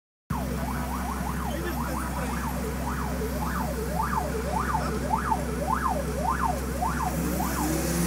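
Emergency vehicle siren yelping, its pitch sweeping quickly up and down about twice a second, over a steady low traffic hum.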